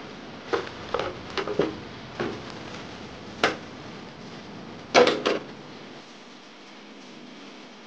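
Clear protective plastic film crinkling and crackling as it is peeled off a painted RC car body shell, in a string of short, irregular crackles with the loudest cluster about five seconds in.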